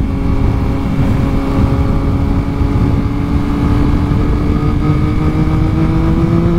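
Motorcycle engine running under way, its pitch climbing slowly and steadily as it gathers speed, over heavy wind rumble on the microphone.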